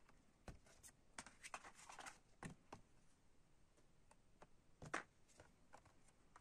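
Faint clicks and rustles of stiff printed cards being handled and slid off a stack, with a sharper tap about five seconds in.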